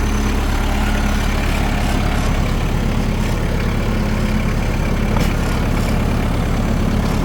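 Tractor engine running steadily, a low, even hum.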